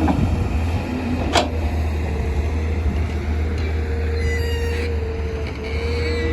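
Tata Hitachi hydraulic excavator's diesel engine running steadily with a low rumble. There is a single sharp metallic clank about a second and a half in, and a short high squeal about two thirds of the way through.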